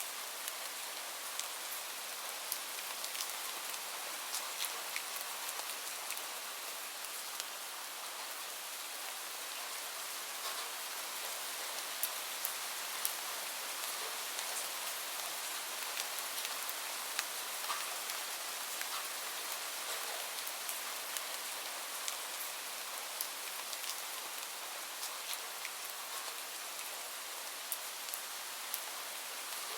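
Steady rain falling: an even hiss with scattered sharper drop ticks throughout.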